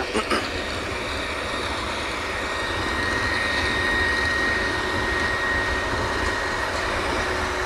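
Steady drone of drilling-rig machinery, with a thin steady whine over it and a rough low rumble, swelling slightly a few seconds in.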